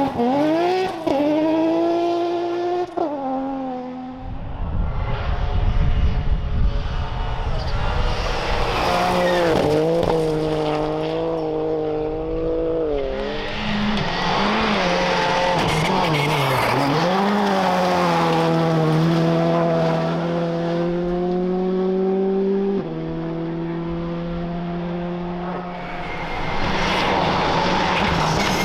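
Rally cars driving flat out on a gravel special stage, one clip after another. The engines rev high, and the pitch dips as the drivers lift for corners before climbing again through the gears, with tyres and gravel hissing underneath.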